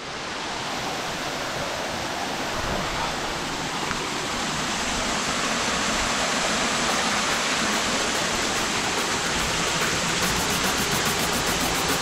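Water of a small waterfall and stream running over rocks into a rock pool: a steady rush that fades in at the start.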